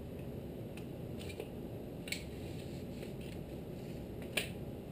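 Quiet steady room noise with a few faint sharp clicks, the clearest about four seconds in.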